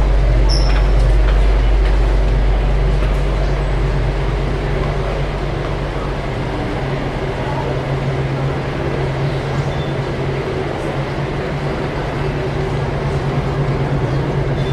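Steady, loud low rumble with a deep droning hum inside the Hoover Dam, the kind made by water rushing through the penstocks and the dam's machinery.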